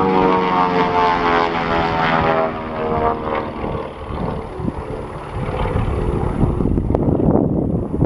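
Twin Beech 18's two radial engines and propellers droning in a flyby, the pitch sliding down as the aircraft passes and the engine tone fading about a third of the way in. A low unpitched rumble, likely wind on the microphone, fills the rest.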